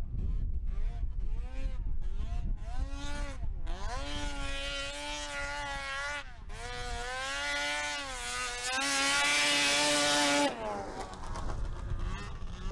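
600-class Arctic Cat snowmobile engine revving hard up a hill climb, its pitch rising and falling as the throttle is worked. It is then held high and steady, loudest just before it cuts back sharply about ten seconds in, and carries on fainter after that.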